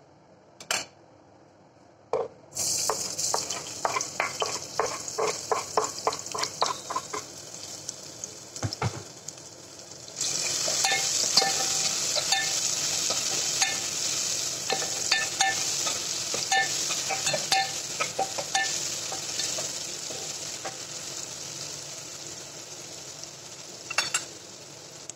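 Chopped onions sizzling in hot oil in a metal pot while a spoon stirs them, scraping and clinking against the pot. The sizzle starts suddenly a couple of seconds in, jumps louder about ten seconds in, then slowly dies down.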